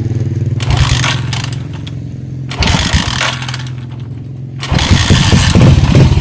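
Rusi Macho TC150 motorcycle being kick-started: a few seconds of kicking and clatter, then the engine catches about three-quarters of the way through and runs loudly with a fast, even pulse.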